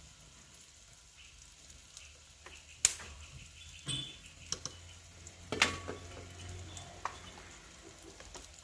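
Onion, tomato and dry spices frying with a low sizzle in a kadhai over a wood fire, with a few sharp knocks and scrapes of the spoon against the pan as the masala is stirred in; one knock rings briefly like metal.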